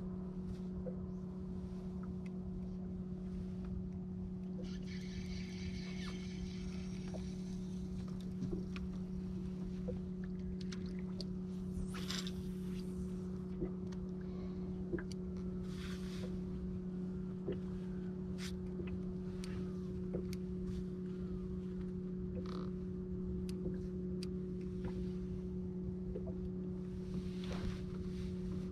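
Steady low hum of a bass boat's electric trolling motor, holding one pitch throughout, with faint scattered clicks and a few short swishes.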